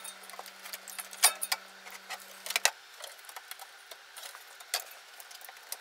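Small plastic clicks and taps at irregular intervals as hands work wire-harness connectors and cables loose from an amplifier's circuit boards.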